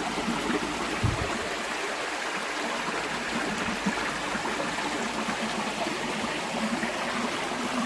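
Highland river running in its glen, a steady rush of water.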